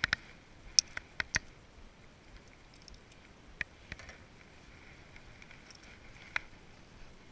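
Short sharp clicks and taps, several close together in the first second and a half and a few single ones later, from a hard plastic fishing lure and its metal clip being handled.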